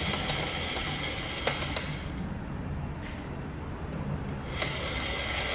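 Steady high-pitched whine from the milling machine's electric drive, which cuts out about two seconds in and comes back about two and a half seconds later, with a couple of light ticks just before it stops.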